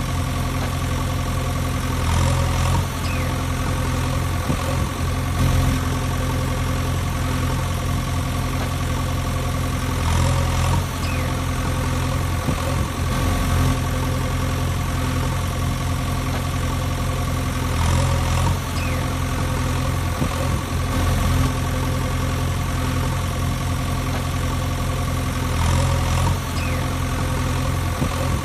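Looped engine sound of a heavy vehicle idling steadily, with a slight swell that repeats about every eight seconds.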